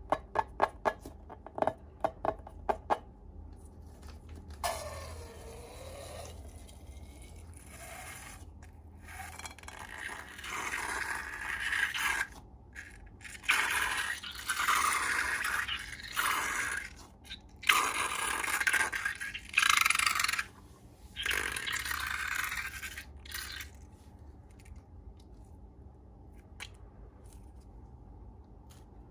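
Slime and balloons being handled: a quick run of sharp clicks in the first three seconds, then repeated bursts of scraping and squishing that stop and start.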